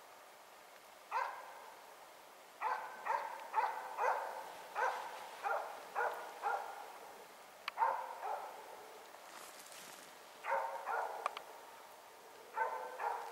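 Norwegian grey elkhound barking in irregular runs of quick, repeated barks, with short gaps between the runs. It is a loose-hunting dog's bay, holding a moose at bay for the hunters.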